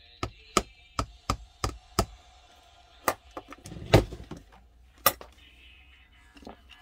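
Sharp taps on a hard surface: six in quick succession, about three a second, then three more spaced about a second apart. The loudest comes about four seconds in, with a dull thud under it.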